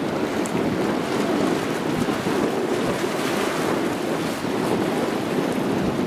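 Choppy sea water sloshing as a steady rushing noise, with no single wave crashing out, and wind blowing on the microphone.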